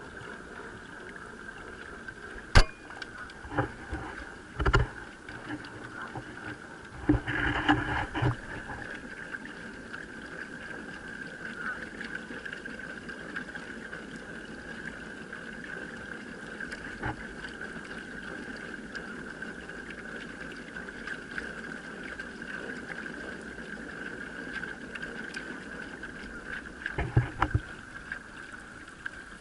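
Pedal boat's chain-and-sprocket drive turning the prop shaft, a steady whir over the wash of water. A sharp click comes about two and a half seconds in, a few thumps follow, a louder short burst comes at about seven to eight seconds, and a cluster of knocks comes near the end.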